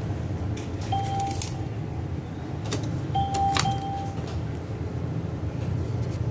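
ATM beeping with keypad and mechanism clicks: one short beep about a second in, then two beeps in quick succession around three and a half seconds in, as the machine ends the transaction and prompts for the card to be taken. A steady low machine hum runs underneath.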